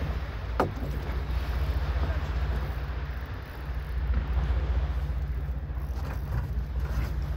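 Boat motor running at a steady low hum, with wind rumbling on the microphone. A single sharp knock comes a little over half a second in.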